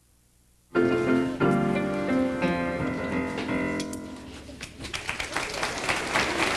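Brief near-silent dropout, then a piano plays the closing chords of a song, dying away about four seconds in. An audience starts applauding about five seconds in.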